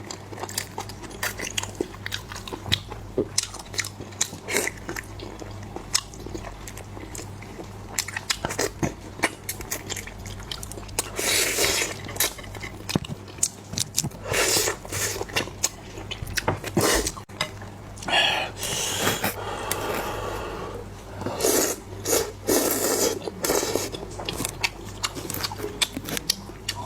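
Close-miked eating: chewing and biting, with frequent small clicks of utensils against a dish, and a few louder, noisier stretches of a second or two in the second half.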